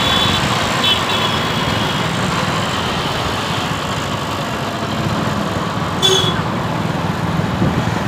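Steady traffic noise heard from a moving motorcycle: engines and tyres on the road. Short high beeps sound near the start and again about six seconds in.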